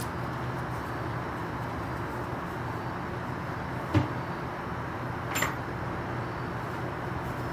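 A wooden fence gate being worked: a sharp knock about four seconds in, then a lighter metallic clink with a brief ring from its metal latch a second and a half later, over a steady background hum.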